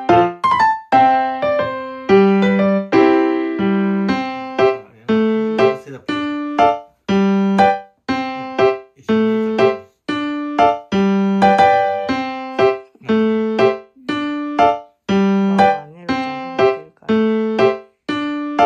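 Background piano music: a calm melody of single struck notes, each fading away, at an even, unhurried pace of about two notes a second.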